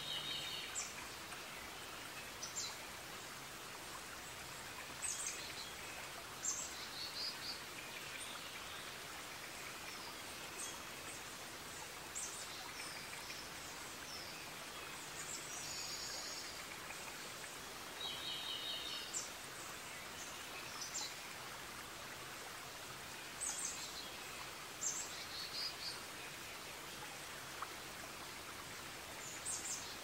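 Forest ambience: birds singing short high chirping phrases every one to few seconds over a steady, even background hiss.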